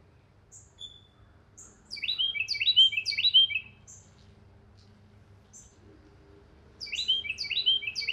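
A songbird singing two loud phrases, each of three quick repeated falling notes, about two seconds in and again near the end, with thin high chips scattered between them. A faint steady low hum runs underneath.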